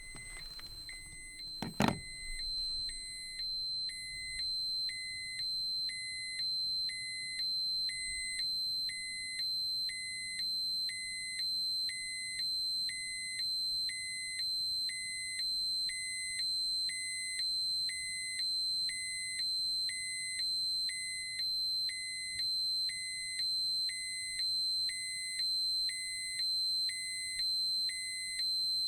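Dosimeter alarm sounding: a steady high-pitched tone with a second beep pulsing over it at an even rate, roughly once a second. A single sharp knock comes about two seconds in.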